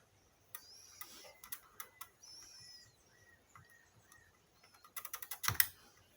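Light clicks and taps of small hand tools on a circuit board, with faint short bird chirps in the background. Near the end comes a quick run of sharp clicks and a louder knock.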